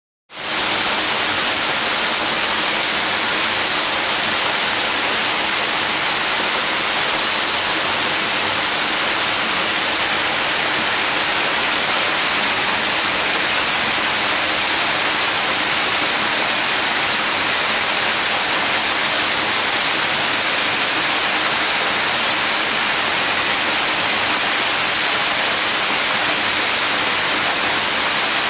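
Water falling close by in a curtain of streams and drops, a loud, steady rushing splash.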